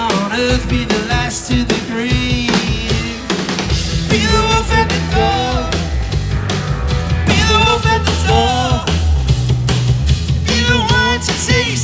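Live rock band playing loud, with drum kit and bass under a wavering pitched lead line.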